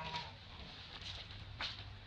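A baby macaque gives a brief squeaky call right at the start. About one and a half seconds in, dry leaves crackle sharply under the monkeys' feet.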